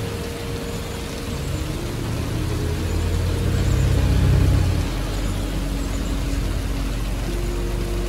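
Steady hiss of rain falling, with a road vehicle passing: its low rumble swells from about three seconds in, is loudest near four and a half seconds, then falls away.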